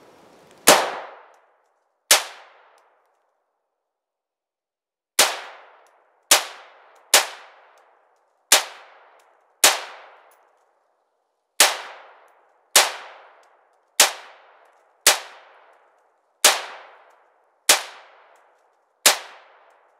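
AR-15 rifle fired one round at a time: fourteen single shots, mostly about a second apart, with a longer pause after the second shot. Each crack is followed by a short, fading tail.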